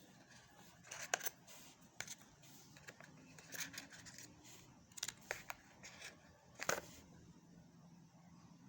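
Handling noises from unboxing a vape pod kit: a series of irregular clicks and scrapes, the sharpest about a second in and again near the seventh second.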